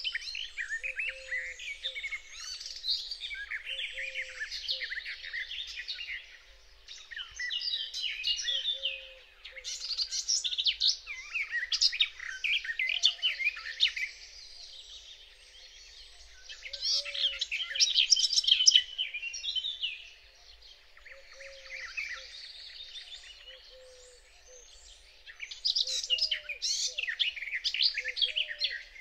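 Garden warbler singing close by in long, rich warbling phrases of a few seconds each, separated by short pauses, with other birds singing faintly behind. A faint steady hum runs underneath: an electro-mechanical noise of human origin.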